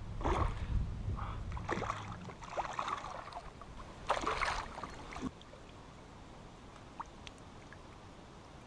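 Water splashing and sloshing around a canoe in several bursts, over a steady low hum for the first two seconds; the splashing stops about five seconds in, leaving quiet with a couple of faint clicks.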